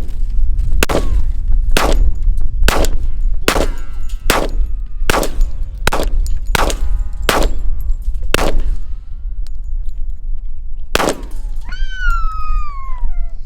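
A firearm fired about eleven times in quick succession, roughly one shot every 0.8 seconds, then a short pause and one last shot. Steady wind rumble on the microphone runs under it, and a voice calls out near the end.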